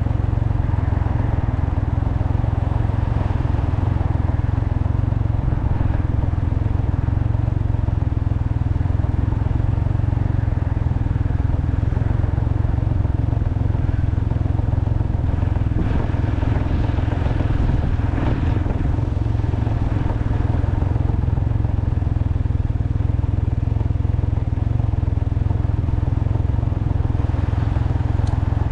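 Heavy, steady wind buffeting on the microphone of a Can-Am Ryker three-wheeler under way, with its engine running beneath the wind.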